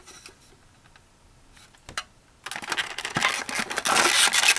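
Clear plastic display case being handled: a few light clicks at first, then from about two and a half seconds in a loud, dense clatter of plastic scraping and clicking as the front door and case are worked by hand.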